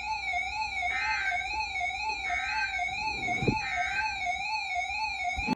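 A steady electronic tone warbling up and down in pitch about four times a second, with faint pulsing chirps above it and a dull low thud about three and a half seconds in.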